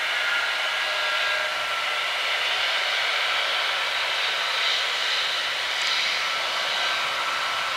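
Airbus A321neo turbofan engines running at taxi power: a steady rushing whine, with faint steady tones that fade away in the first couple of seconds.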